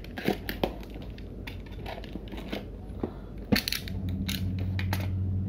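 Utility knife slitting packing tape on a cardboard box, then the flaps being pulled open and the cardboard handled, in irregular crinkling scrapes and sharp clicks. A steady low hum comes in about halfway through.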